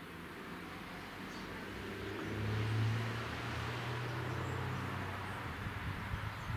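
A motor vehicle passing, its low engine hum and a hiss swelling to a peak about three seconds in and then fading.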